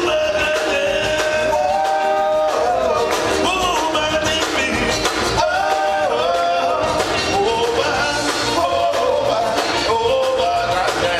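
Live zydeco band playing: accordion, rubboard, electric guitars and drums, with vocals.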